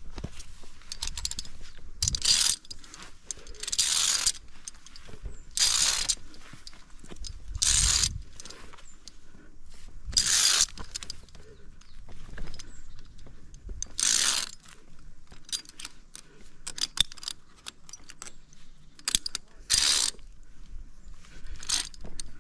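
Via ferrata lanyard carabiners (Edelrid Cable Kit Lite) clinking and scraping on the steel safety cable. Short metallic scrapes come about every two seconds, with quick runs of clicks in between.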